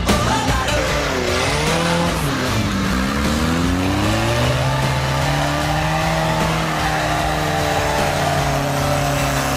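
Off-road trial vehicle's engine revving hard. Its pitch dips and rises twice in the first few seconds, then climbs and holds high and steady as the vehicle pulls up a steep, muddy bank under load.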